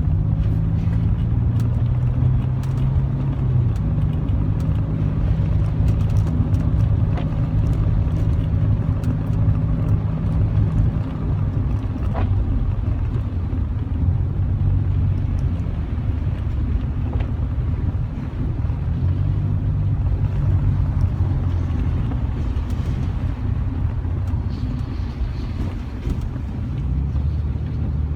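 Car engine and tyre noise heard from inside the cabin as the car climbs a steep hill, the engine's low drone shifting pitch several times.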